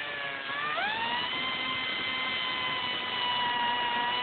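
A high-speed power cutting tool whining steadily as it cuts through a steel handcuff close to the wrist. Its pitch sags slightly, then climbs back within the first second and holds.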